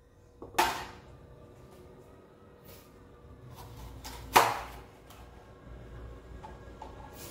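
Kitchen knife striking a plastic cutting board while slicing a bell pepper: two sharp knocks about four seconds apart, the second the loudest, with a few light taps between them over a low steady hum.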